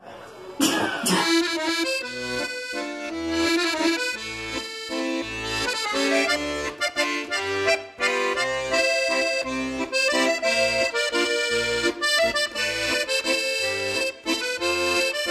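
Instrumental outro music with a steady bass beat about twice a second. A brief noisy sweep comes about half a second in, as the music starts.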